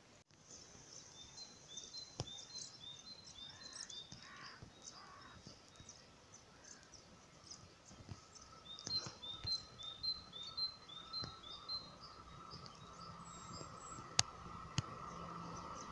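A small bird singing a short two-note phrase, repeated quickly in two bouts. From about halfway a faint steady hum builds: a train approaching, two coupled class 648 (Alstom Coradia LINT 41) diesel multiple units. A single sharp click near the end.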